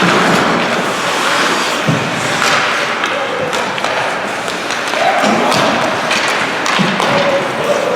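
Spectators chattering and calling out in a large echoing indoor arena, with scattered thuds and knocks from play during the game.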